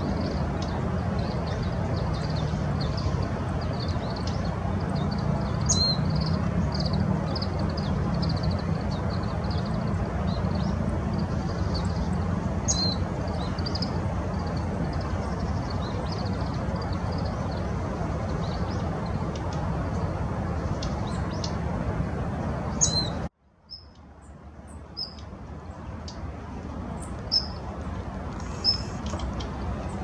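Small birds giving thin, high calls over a steady low background rumble, with three sharper downward-slurred calls standing out about six, thirteen and twenty-three seconds in. Just after the third, the rumble cuts out suddenly and comes back softer, still with a few short high notes.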